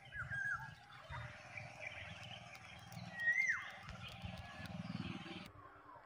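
Black-naped oriole calling: a few short slurred whistles about half a second in, then a louder down-slurred whistle about three seconds in, over a low rumble and hiss.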